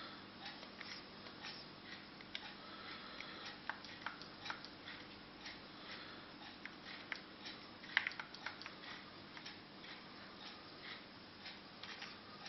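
Light, irregular clicks, a few a second, with a louder cluster about eight seconds in, over a faint steady hum. This is the clicking that goes with stepping through the XBMC menus.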